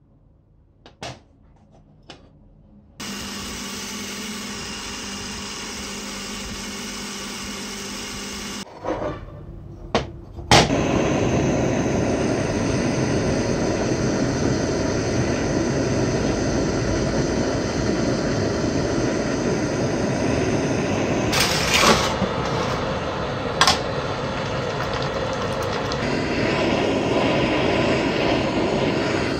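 A few light clicks, then a machine hum runs for about six seconds and stops. From about ten seconds in, a handheld gas torch burns with a steady rushing noise as its flame heats a threaded steel rod, with a couple of sharp metal clicks partway through.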